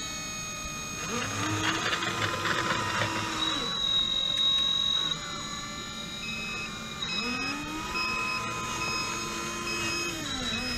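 Small electric motor of an RC model whining. It spins up, holds a steady pitch for a couple of seconds and winds down, twice.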